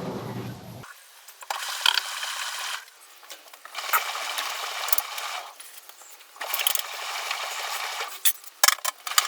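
Samsung front-load washing machine running a rinse cycle: the drum turns in short spells of a second or two with pauses between, water swishing inside, and a run of sharp clicks near the end.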